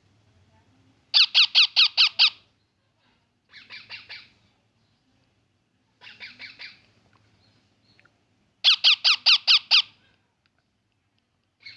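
Baby parrot calling in short bouts of about six quick, rasping chirps each, roughly five a second. Two bouts, about a second in and again about nine seconds in, are much louder than the two fainter bouts between them.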